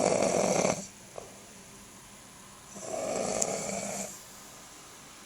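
A man snoring heavily in his sleep: two loud snores about three seconds apart, each lasting over a second, the first the louder.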